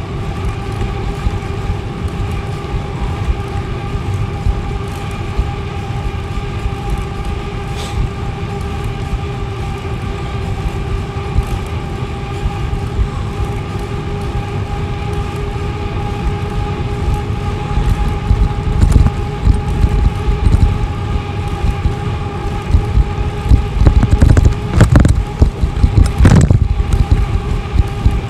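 Bicycle riding along a paved trail: low tyre and wind rumble on the microphone with a steady hum under it, turning into heavier, gusty wind buffeting in the last ten seconds or so.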